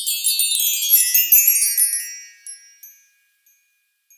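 A shimmering cascade of many high, bell-like chime tones, a magical sparkle sound, that spreads downward in pitch and dies away about two and a half seconds in, leaving a few faint pings.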